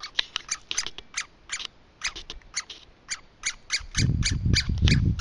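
Young woodpecker's begging calls as a parent feeds it: a rapid series of short, high calls, about three or four a second, throughout. A low rumble joins from about four seconds in.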